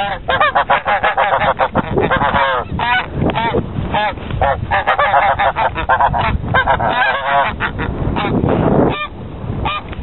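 Snow geese honking rapidly and repeatedly, the alarm and threat calls of geese standing their ground with wings spread against an intruder. There is a brief lull about nine seconds in.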